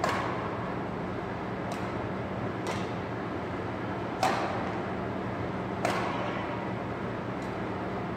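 Badminton rackets striking a shuttlecock in a rally: five sharp, echoing hits, the loudest at the start and about four and six seconds in, over a steady low hum.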